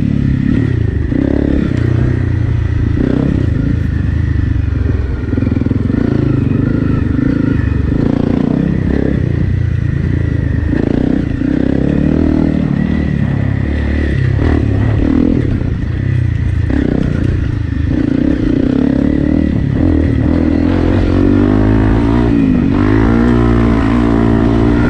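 Honda CRF250L Rally's single-cylinder four-stroke engine running through an FMF PowerCore 4 exhaust while ridden off-road, the revs rising and falling with the throttle. It carries clatter and scraping from the rough ground, and the revs swing up and down several times near the end.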